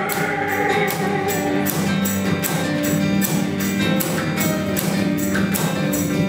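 Live acoustic band music: strummed acoustic guitars over a steady cajón beat, with singing.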